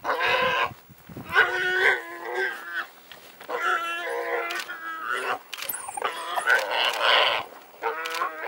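Warthog squealing as African wild dogs attack it: a run of loud, high-pitched squeals, each up to a second or so long, with short breaks between them.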